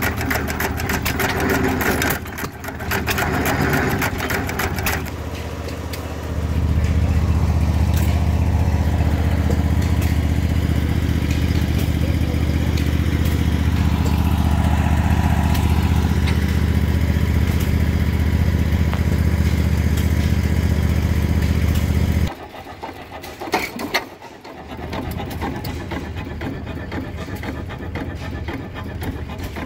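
Antique hit-and-miss gas engines running, heard as rapid ticking and clatter from their firing and valve gear. For a long stretch in the middle, a loud steady low rumble covers them and then cuts off suddenly.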